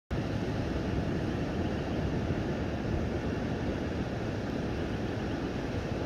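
Steady, even low rumbling background noise with no distinct events, the kind that wind or distant traffic makes on an outdoor recording.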